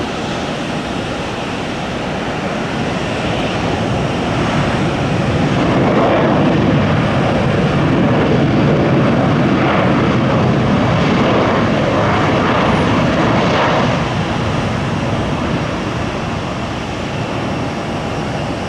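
Jet airliner engines running as the aircraft passes: a broad rushing noise swells about five seconds in, holds loud, then drops off after about fourteen seconds.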